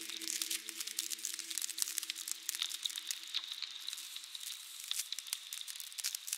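Small pieces of ice crackling and fizzing as they melt: a dense, fast, irregular patter of tiny pops.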